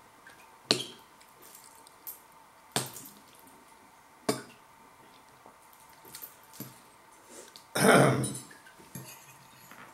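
Metal cutlery clinking against a ceramic bowl as food is picked at: three sharp clinks spread over the first half, fainter taps and scrapes between, and a longer, louder noise near the end.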